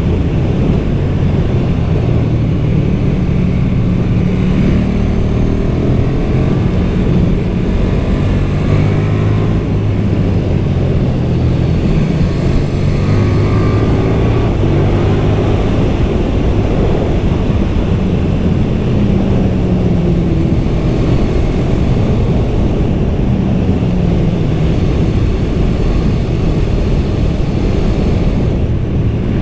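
KTM 1290 Super Duke R's V-twin engine on its stock exhaust, running hard on the road with the revs rising and falling again and again.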